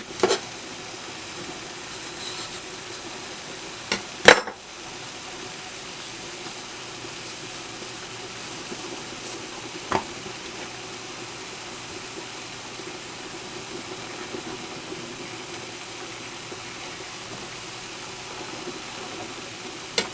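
A knife knocking on a cutting board a few times as plantains are cut, the loudest pair of knocks about four seconds in and another about ten seconds in, over a steady hiss.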